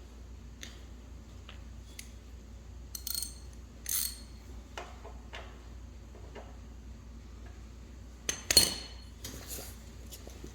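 Scattered light metallic clinks and knocks of tools and parts being handled while working on a small generator's carburetor, with the loudest cluster of knocks near the end.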